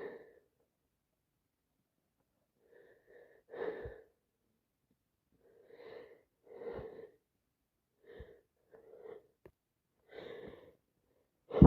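A person with a heavy head cold sniffing and breathing through a congested nose: about eight short, breathy bursts spaced a second or two apart, with a much louder burst at the very end.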